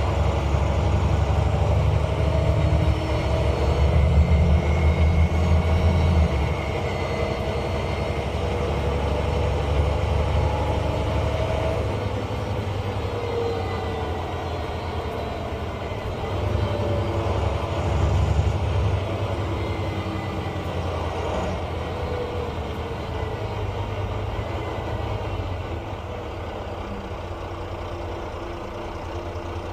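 Volvo B9 bus diesel engine working under way, with a turbo whistle that rises and falls over a deep engine rumble. It is loudest for the first six seconds, swells again around eighteen seconds in, and eases down near the end.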